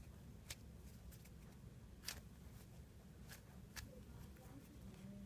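Near silence with low room hum and a handful of faint, short ticks and rustles from a foam squishy toy being handled and squeezed.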